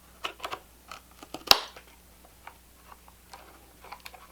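Small spring-loaded scissors of a multi-tool snipping through cardboard: a few short sharp snips, with one loud snap about a second and a half in.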